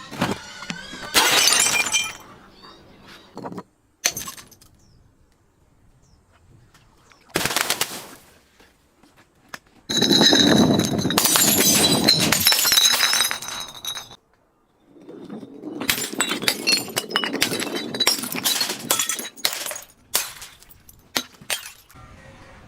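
Glass bottles being broken and crushed: separate bursts of shattering and crunching with ringing glass. The longest and loudest comes about ten seconds in, followed by a run of sharp cracks and tinkles.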